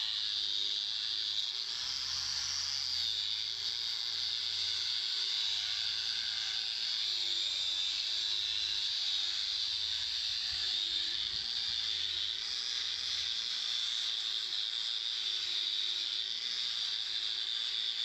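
Angle grinder with a wire cup brush scouring a metal door frame, a steady high hiss from the wire on the metal.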